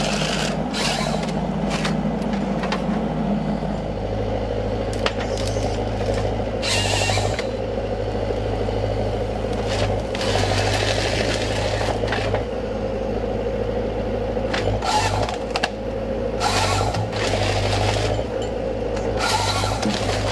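Forestry harvester's engine running steadily under load, its low drone stepping in pitch about four seconds in, with short bursts of noise several times as the harvesting head works.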